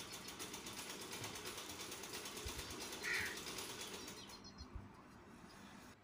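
Opened digital multimeter being handled, giving a fast, even ratcheting rattle of many small clicks that stops about four seconds in, with one brief louder note near the three-second mark.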